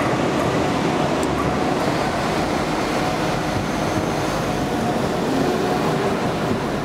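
London Midland Class 172 Turbostar diesel multiple unit running slowly into the platform and past, under a concrete station canopy: a steady rumble of its diesel engines and its wheels on the rails.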